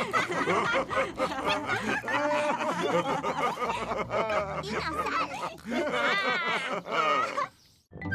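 Several cartoon pig characters laughing together, high children's and deeper adult voices overlapping. The laughter stops about half a second before the end, leaving a brief moment of silence.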